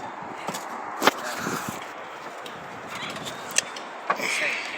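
A few scattered sharp knocks and clicks, the loudest about a second in, with a short scraping hiss near the end: hand work on the roof as the hole for the chimney is started.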